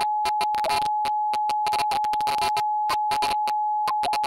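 A steady single-pitched telephone-line tone, broken over by irregular bursts of crackling static.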